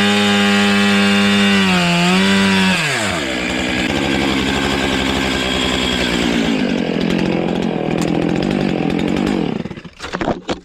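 Chainsaw running at full throttle, then dropping sharply in pitch about three seconds in as it bogs down cutting into a large black walnut trunk, and running under load until it stops near the end, followed by a few knocks.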